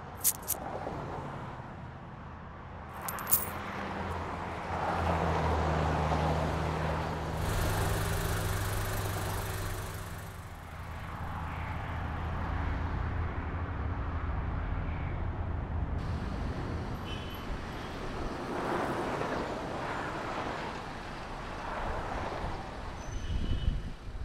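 Road vehicle's engine running, heard from inside the cabin during a ride, with traffic noise around it. A steady low engine hum strengthens about five seconds in, and there are a few sharp clicks near the start.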